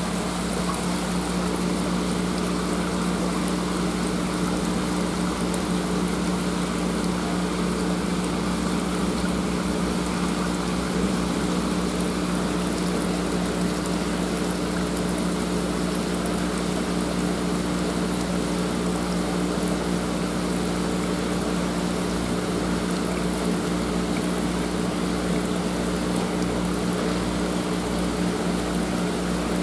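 Tank water pump or aerator running steadily: a constant low hum under the even rush of moving water.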